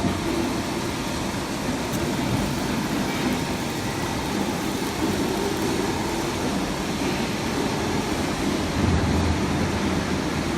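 W12 CNC plate rolling machine running under test: a steady low mechanical hum with an even hiss over it.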